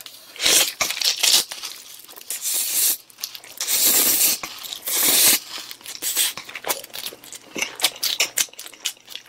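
A person slurping noodles in spicy red sauce off chopsticks, in several long sucking pulls, then close wet chewing and lip smacking in quick short clicks over the last few seconds.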